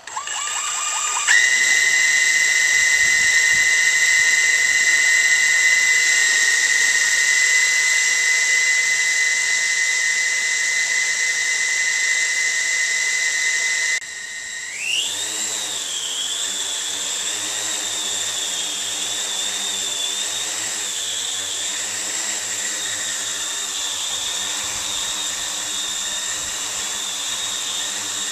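Yuneec H920 hexacopter's six electric motors and propellers spinning up. A whine climbs in the first second, then holds one steady high pitch while the drone idles on the ground. About halfway through, the pitch rises sharply as it lifts off, and the whine wavers slightly as it hovers.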